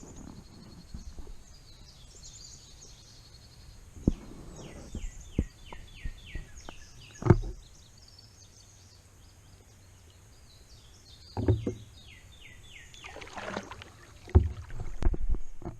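Kayak paddling: a paddle knocks against the plastic hull half a dozen times, with a brief swish of water near the end. A songbird sings in the background, a quick series of repeated falling notes.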